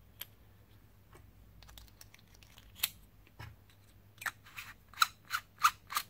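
Male XLR plug being screwed back together, its metal shell turning against the insert and boot with small clicks and scrapes. The clicks are scattered at first, then come about three a second and louder in the last two seconds.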